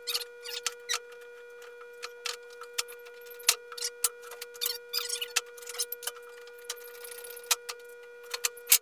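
Irregular clicks, knocks and short scrapes of a clamp and chair parts being worked by hand, with a steady hum underneath.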